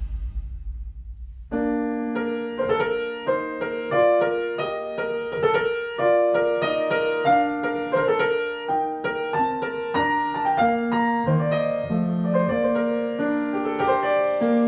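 Grand piano being played, a melody of separate notes over lower chords, starting about a second and a half in. Before it starts, a low rumble fades out.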